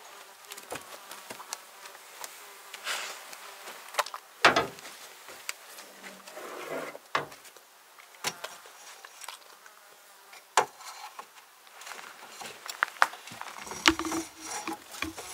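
A fly buzzing close by, louder near the end, over scattered sharp clicks and knocks as a goat noses and scrapes around under a pickup truck. The loudest knock comes about four and a half seconds in.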